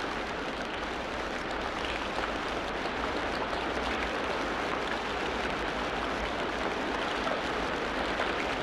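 Steady, even rush of water noise, like a stream or rain, with no change in level.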